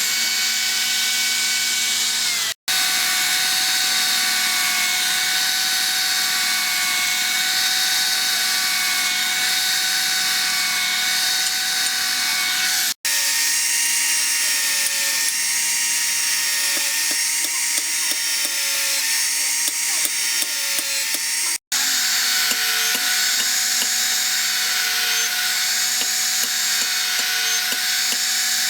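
Electric power tool running steadily against a workpiece, with a constant motor whine under a grinding, rubbing noise. Three abrupt, very brief dropouts break it.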